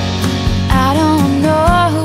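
A song playing: a singing voice carrying a melody over instrumental backing with a regular beat.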